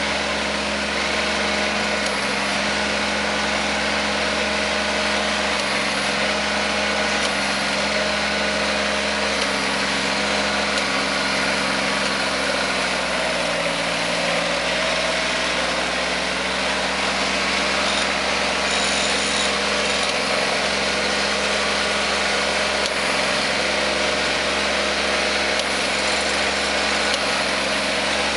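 Kubota compact tractor's diesel engine running steadily under load while pulling a ridging implement through soil; the engine note sags briefly about halfway through, then recovers.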